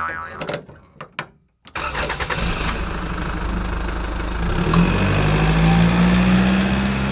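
A few sharp clicks, then about two seconds in a motor vehicle engine starts and runs steadily, its hum rising and growing louder around the middle.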